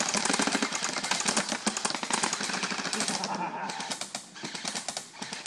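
Several airsoft rifles firing rapid automatic bursts at once, a dense stream of sharp clicks that thins out about three and a half seconds in.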